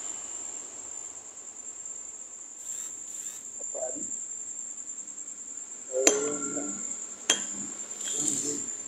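Crickets chirring in one steady high-pitched tone, with two sharp clicks a little over a second apart about two-thirds of the way through.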